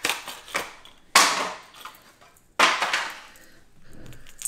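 A crankbait's plastic packaging being opened by hand: two loud crackling snaps about a second and a half apart, then a short run of quicker, softer rustling near the end.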